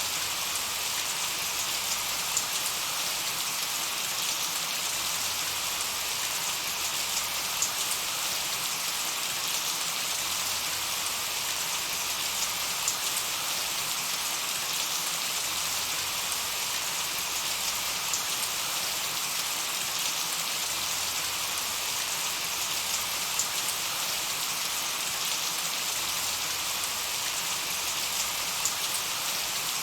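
Steady light rain pattering, with scattered individual drop ticks.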